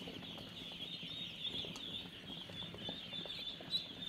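A large flock of ducklings peeping together in a dense, steady high-pitched chorus while feeding on pellets, with scattered faint clicks.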